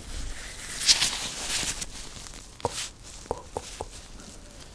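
Rubber gloves rubbed together close to the microphone: a loud crinkly rubbing about a second in, then four short sharp clicks.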